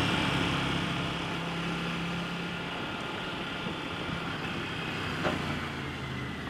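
Aprilia RS 660's parallel-twin engine running at low, steady revs through an Akrapovic full exhaust, over wind and road noise. It quietens a little over the first couple of seconds as the bike slows, with a single light tap about five seconds in.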